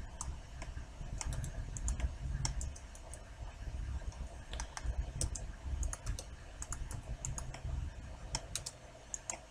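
Computer keyboard keys pressed in scattered single strokes, entering software shortcut keys one at a time rather than steady typing, over a low steady rumble.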